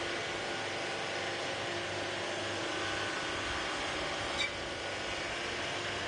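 Tourist road train driving slowly along, its engine and tyres giving a steady running hum and hiss. A short sharp click rings out about four seconds in.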